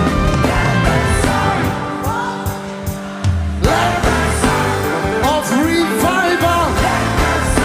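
Live gospel worship music from a band, a gliding melodic line over a steady bass. It thins out and drops a little a couple of seconds in, then comes back in full, suddenly, about three and a half seconds in.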